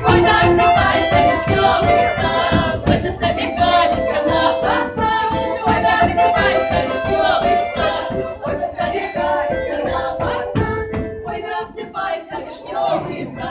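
Belarusian women's folk ensemble singing a lively song together in several voices, with hand claps keeping time.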